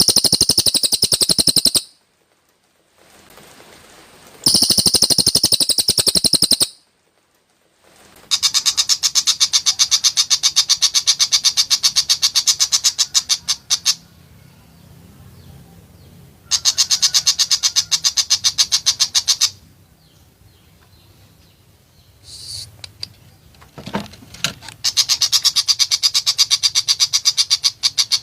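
Cucak hijau (green leafbird) singing harsh 'tembakan' bursts: rapid volleys of sharp, closely spaced high notes, each volley a few seconds long, separated by short pauses, five volleys in all.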